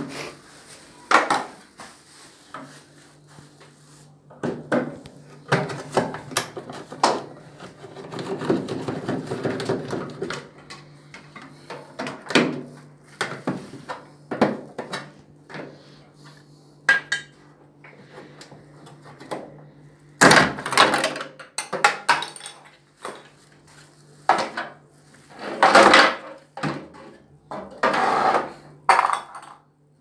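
Hands and a screwdriver working inside an opened washing machine, taking off the detergent drawer's front panel: scattered clicks, knocks and plastic-and-metal clattering, with louder bursts of handling in the last third. A low steady hum runs underneath.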